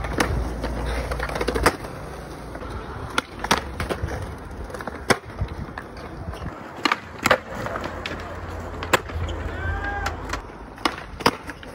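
Skateboard wheels rolling on concrete, broken by a series of sharp clacks as the tail pops and the board lands.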